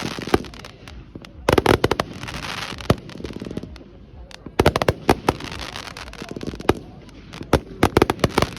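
Many fireworks going off at once: rapid volleys of sharp bangs in three bursts, with crackling and fizzing in between.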